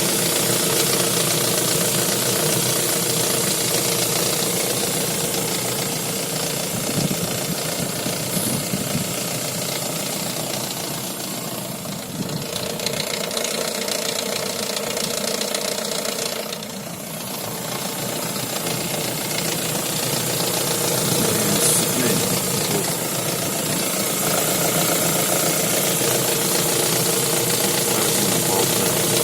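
Lada Vesta running with an extraneous mechanical noise that the owner traces to the manual gearbox, cause unknown. A steady engine-and-drivetrain sound with several held tones, briefly quieter twice near the middle.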